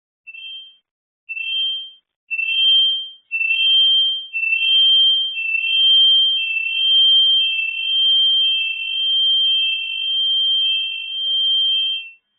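Electronic alarm sounding a two-tone beep about once a second, faint at first and getting louder over the first few seconds, then holding steady until it stops just before the end.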